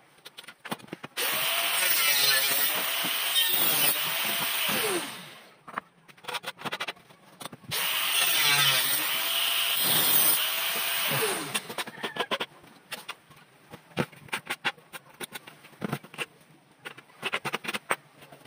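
A motor runs loudly twice, about four seconds each time, its pitch rising and falling. Between and after the runs come light knocks and clicks.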